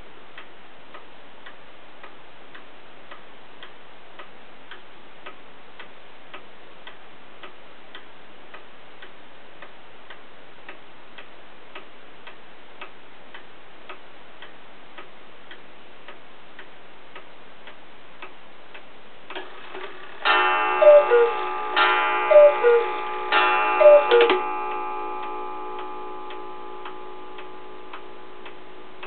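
Antique Black Forest cuckoo clock ticking steadily. About twenty seconds in, it strikes the hour with three two-note cuckoo calls, high then low, each with a ringing gong stroke that fades slowly afterwards.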